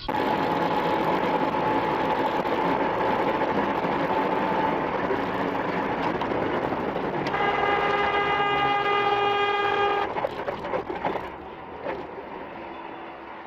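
A loud horn sounds for about three seconds over a loud, steady rushing vehicle noise. Both stop together about ten seconds in, leaving quieter rumbling.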